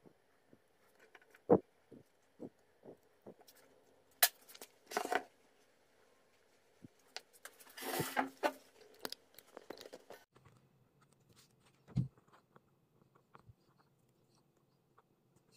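Small handling noises of wires and a taped battery pack being handled on a cutting mat: scattered light clicks and taps, two longer rustling scrapes about five and eight seconds in, and a single knock about twelve seconds in.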